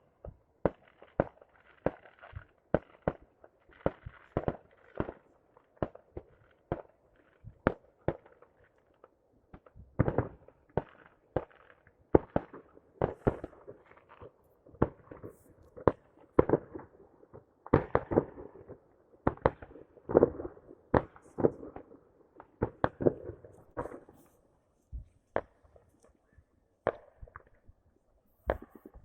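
Fireworks going off: dozens of sharp bangs at irregular intervals, several a second at the busiest moments, some followed by a brief crackle.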